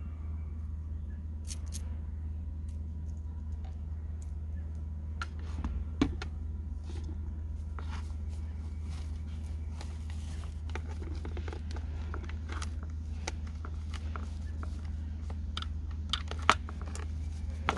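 Saw chain links clicking and rattling in the hands as the chain is worked around the bar and onto the drive sprocket. There is a knock about six seconds in and a sharper click near the end, over a steady low rumble.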